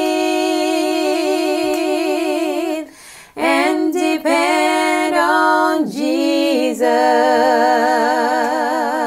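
A woman's voice singing a gospel song a cappella, layered in harmony with a second recorded part of her own. Long held notes with wide vibrato, in three phrases broken by short breaths about three and six seconds in.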